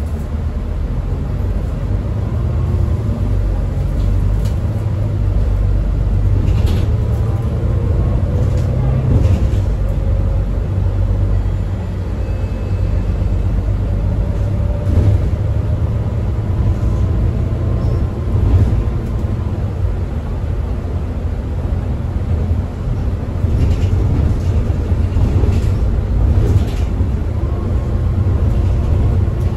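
Volvo B9TL double-decker bus under way, its 9.4-litre Volvo D9B six-cylinder diesel and ZF EcoLife automatic gearbox giving a steady low rumble. A faint whine rises a few times as the bus gathers speed, with occasional short rattles.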